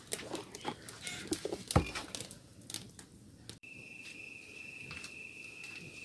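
Scattered clicks and pops, then after a cut about halfway through, a steady high-pitched insect trill, typical of crickets.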